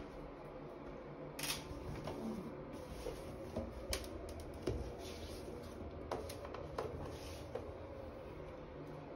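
Handling noise as a shaggy bath mat is moved about in a shower tray: scattered soft knocks and rustles, one every second or so, over a faint steady hum.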